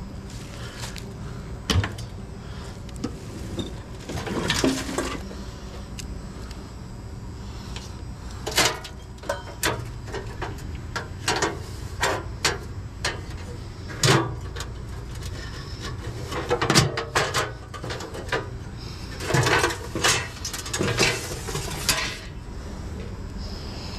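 Sheet metal of a discarded small appliance clanking and rattling as it is pulled apart by hand: scattered sharp knocks and clatters, in several quick clusters, over a steady low hum.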